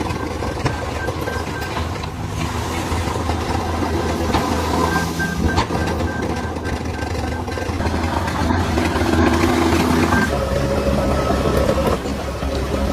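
DH17C3 crawler bulldozer's diesel engine running under load, with clanks and knocks from the tracks and blade. A high pulsing tone sounds for a few seconds partway through.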